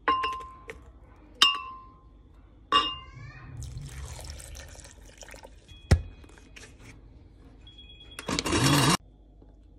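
Three ringing clinks on a glass blender jar as ingredients go in, then milk pouring into the jar, and a sharp knock about six seconds in. Near the end the blender motor starts up loudly for under a second and cuts off suddenly.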